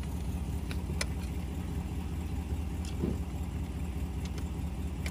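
A steady low engine hum like an idling motor, with a few light clicks scattered through it.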